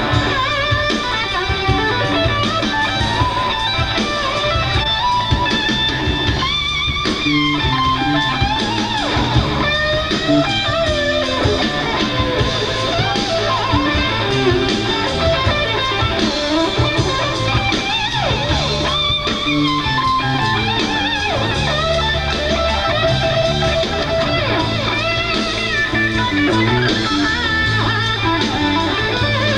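Live rock band playing, with an electric guitar carrying a winding lead line of bent notes over drums and bass guitar.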